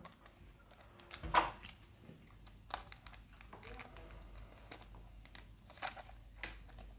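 Light crinkling of a clear plastic parts tray and scattered small clicks and taps from handling tiny screws and setting one on the tip of a small screwdriver.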